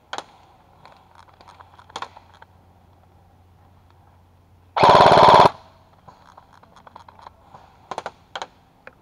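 Airsoft rifle firing one short full-auto burst of under a second about halfway through, a rapid mechanical rattle and the loudest sound here. A few single sharp snaps come before and after it.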